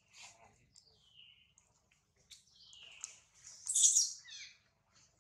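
Newborn macaque crying in thin, high-pitched squeals: a few short calls that slide downward in pitch, with the loudest cry a little less than four seconds in.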